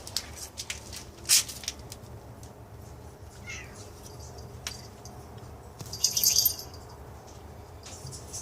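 House cat asking to be let outside: a sharp tap about a second in, a faint short chirp about three and a half seconds in, and a brief, loud, high-pitched squeaky call about six seconds in.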